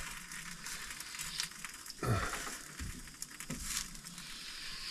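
Portable gas camping stove burning with a steady hiss under a pan of pancakes being heated, with faint sizzling. A few light knocks and rustles come from handling the pan and food.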